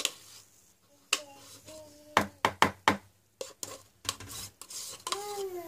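A handful of sharp clicks and knocks as a plastic yogurt pot is handled and squeezed out over a plastic mixing bowl of cake batter, with a cluster of taps about two to three seconds in.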